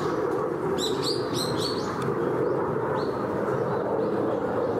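A small bird chirping: a quick run of about five short, high chirps around a second in, then single chirps later, over a steady background of even outdoor noise.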